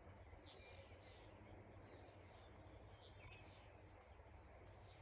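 Faint outdoor ambience: a few short, falling bird chirps, about three in all, over a low steady rumble.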